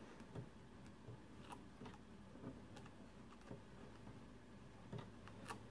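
Faint, irregular clicks of a coaxial cable's F connector being screwed by hand onto a threaded antenna jack.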